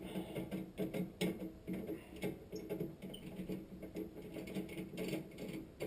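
Electric drill running at a steady low pitch as a 3/16-inch bit works into metal, with irregular ticking and scraping from the cutting.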